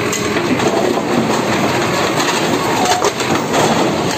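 Backhoe excavator's engine running under load while its bucket pushes into a concrete-block house wall, with a dense continuous clatter and crunch of breaking blocks and debris.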